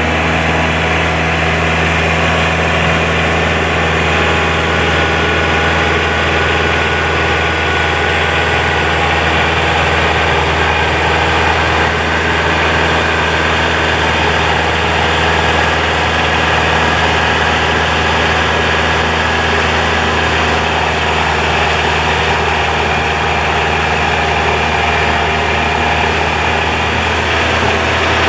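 Kubota tractor's diesel engine running at a steady speed, driving a WoodMaxx PTO snowblower through heavy wet snow.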